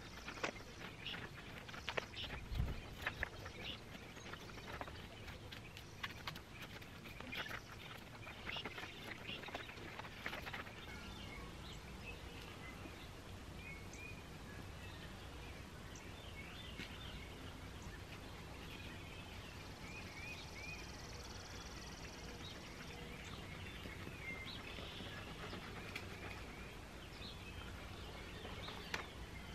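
Faint outdoor background with small birds chirping off and on. During roughly the first ten seconds there are small clicks and scrapes as a knife cuts the hide away from a beaver carcass.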